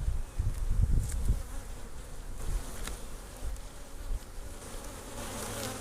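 Honeybees buzzing steadily around an open hive during an inspection, with low bumps and a few faint clicks in the first second or so.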